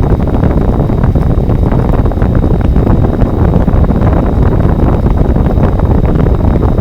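Loud, uneven wind noise buffeting the microphone.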